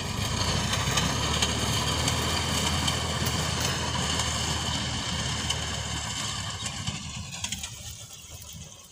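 Tractor engine running steadily while it pulls a reaper cutting standing wheat. The sound grows fainter over the last two seconds or so as the tractor moves away.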